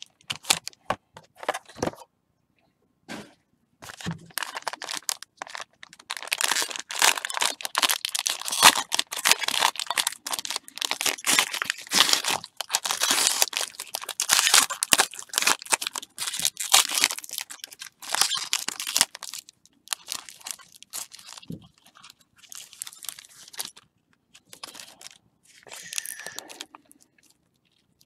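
Foil wrapper of a 2015 Playbook football card pack being torn open and crinkled by gloved hands. It comes as sharp crackling and tearing, sparse with brief silences near the start, dense through the middle, then thinning to occasional rustles near the end.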